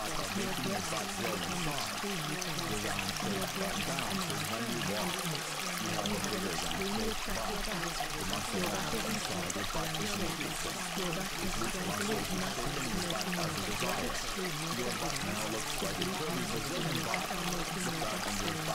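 Steady running water like a flowing stream: a continuous, even rush and trickle that never changes. Underneath it sits a low, steady tone.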